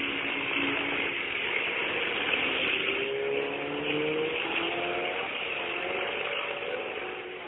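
Racing truck's diesel engine running hard, its note climbing steadily in pitch through the middle as it accelerates, over a steady hiss.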